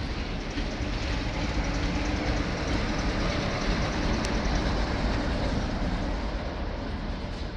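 Passenger coaches of a train rolling past on the rails: a steady rumble and clatter of steel wheels on track.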